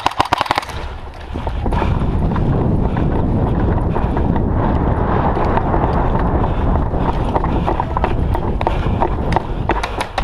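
A rapid burst of airsoft gun fire in the first second, then several seconds of loud, dense footsteps and rustling close to the microphone, as of a player running. A few more sharp shots near the end.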